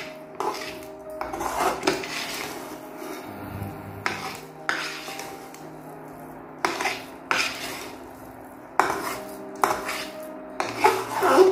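Spatula scraping and stirring a thick, grainy milk-cake mixture against the bottom and sides of a metal kadhai, in repeated strokes at irregular intervals. The mixture has thickened to near done and is kept moving so it does not stick to the bottom.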